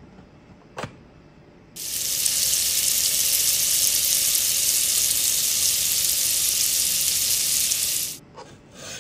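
Hot brass heat-set insert sizzling as the heated tip presses it down into a 3D-printed plastic part, melting its way in: a steady hiss that starts abruptly about two seconds in and cuts off near the end. A short click comes just before it.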